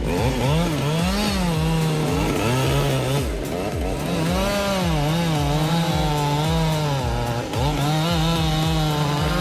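Chainsaw running at high revs, its pitch dipping and recovering several times as the chain works into the wood.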